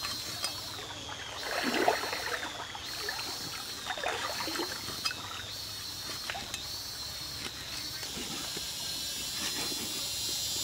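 Cleaver blade scraping between fish skin and flesh and along a wooden cutting board as fillets are skinned, in irregular strokes, the loudest about two seconds in. A high, steady whine runs underneath.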